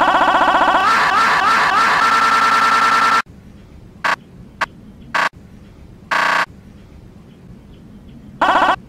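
The screaming-marmot meme scream, edited and stacked: one long loud scream that, from about a second in, is overlaid with several stuttered, pitch-shifted copies into a jumble before cutting off abruptly. Then short chopped-off bits of scream, a longer burst a few seconds later, and one more scream fragment near the end.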